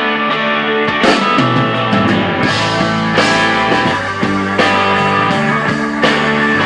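Rock intro music with guitar; sharp drum hits join about a second in and recur at a steady beat.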